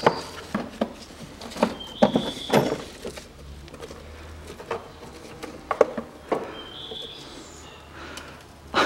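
Plastic clips and lid of a Daewoo Matiz air filter housing being unclipped and handled, with a string of irregular clicks and knocks and a couple of short squeaks, as the lid is lifted and the air filter pulled out.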